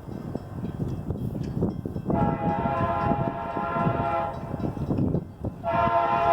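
Metra commuter train's air horn sounding two chord blasts over a low rumble. The first blast starts about two seconds in and lasts about two seconds; the second, louder one begins near the end and is still going.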